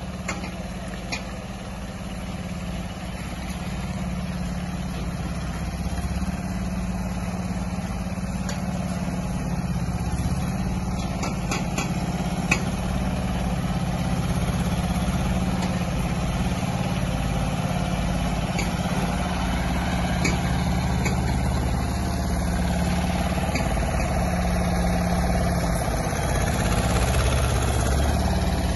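Heavy truck tractor's diesel engine running at low revs as it slowly hauls a tram on a low-loader trailer, a steady low rumble that grows gradually louder, with a few faint clicks.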